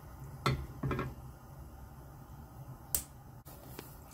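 A few short, sharp clicks and taps of kitchen handling over a low steady hum: two about half a second and a second in, and one about three seconds in.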